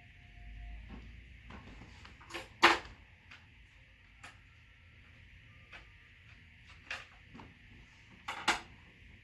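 Vacuum cleaner roller head being handled and fitted: a loud sharp click about two and a half seconds in, a few lighter clicks, and a quick double click near the end.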